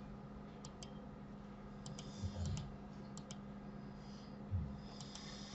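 Faint computer mouse and keyboard clicks, a handful of short clicks mostly in quick pairs, over a steady low electrical hum.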